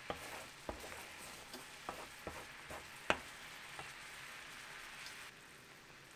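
Food sizzling in a pan, with a few knocks and scrapes of a utensil stirring it; the loudest knock comes about three seconds in, and the sizzle drops away about five seconds in.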